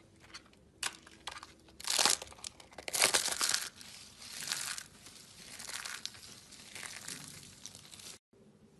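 Crinkling and crumpling in a run of irregular crackly bursts, the loudest about two and three seconds in, cutting off abruptly near the end.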